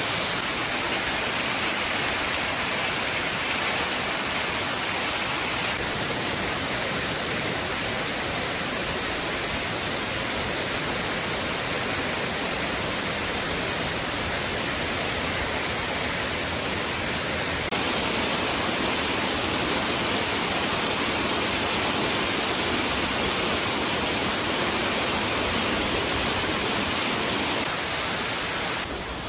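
Steady rush of a forest waterfall, shifting slightly in tone a few times and dropping a little in level near the end.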